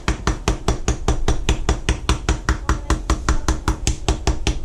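Rapid, even pounding of a kitchen knife striking lemongrass on a plastic cutting board, about five knocks a second: the lemongrass stalks being crushed to release their flavour.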